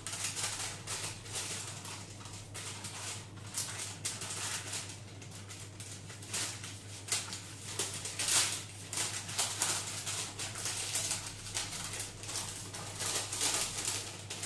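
Baking parchment crinkling and rustling in irregular bursts as it is handled and peeled off rolled shortcrust pastry, over a steady low hum.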